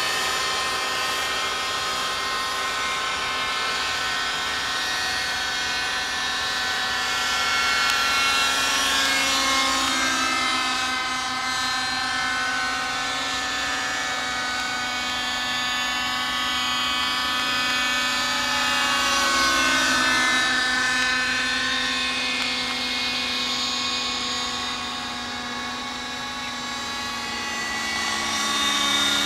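Thunder Tiger Raptor 50 radio-controlled helicopter in flight, its two-stroke glow engine and rotor making a steady high whine. The sound swells and dips in pitch as it passes closer, twice, then fades a little near the end.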